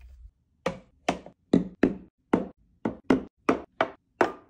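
Skincare bottles and jars set down one after another on a vanity countertop: about ten sharp knocks, a little under half a second apart.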